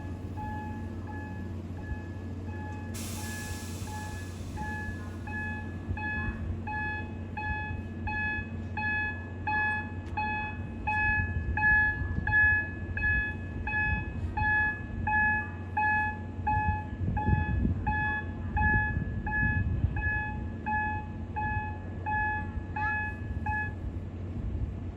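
Railway turntable warning beeper sounding an even, repeating beep, about one and a half a second, that stops near the end. Under it a low rumble grows louder and pulses partway through, and there is a brief hiss about three seconds in.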